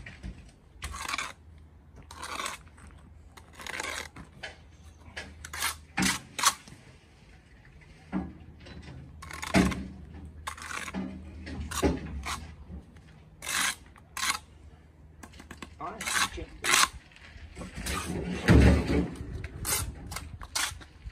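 Steel brick trowel scraping and cutting wet mortar on blue engineering bricks as they are buttered and laid: a series of short scrapes and clinks of steel on brick, with a heavier knock about three-quarters of the way through.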